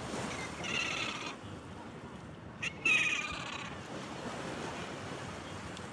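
Two short, pitched bird calls, the first about half a second in and the second about three seconds in, with a sharp tap just before the second. Surf and wind hiss steadily underneath.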